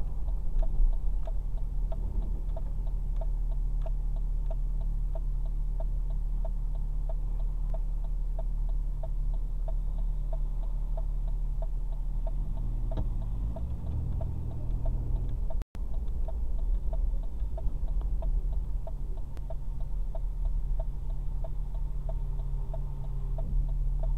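Inside a car's cabin in slow traffic, a turn-signal indicator ticks about twice a second over the steady low rumble of the idling engine. The sound cuts out for an instant about two-thirds of the way through.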